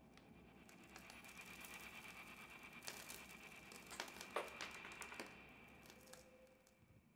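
Faint crinkling and a few small sharp clicks, as of something being handled close by, over a faint steady high tone.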